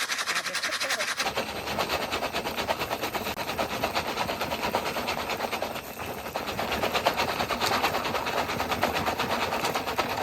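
Jiffy Pop foil popcorn pan on a camping burner, a rapid, dense crackling and popping as the kernels pop. About a second in it grows from a thin high crackle into a fuller, louder one.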